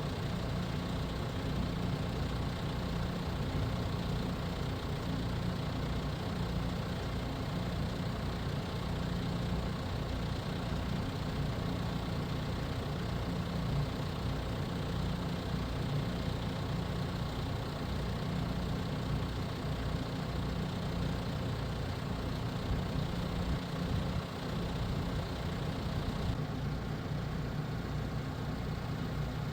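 Engine of heavy farm machinery running steadily at idle, a low, even sound that does not change much.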